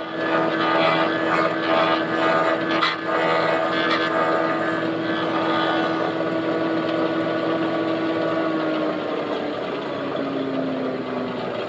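Electric horizontal wood-boring machine running with a one-inch bit cutting into a clamped wooden plank, a steady motor hum with a few sharp ticks from the cut in the first seconds. Near the end the hum drops in pitch as the machine slows down.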